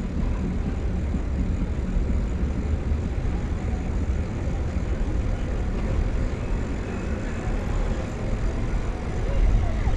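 Wind buffeting the microphone and tyre noise of a moving bicycle: a continuous, uneven low rumble with no distinct events.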